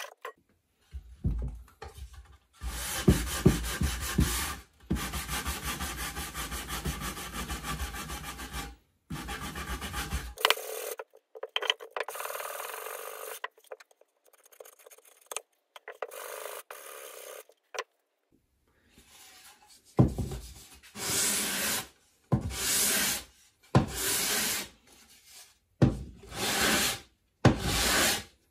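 Hand abrading of a walnut tray's edges: quick back-and-forth scraping strokes on the wood. Near the end, the tray is rubbed across 150- and then 240-grit sandpaper in separate strokes about a second apart, the final sanding.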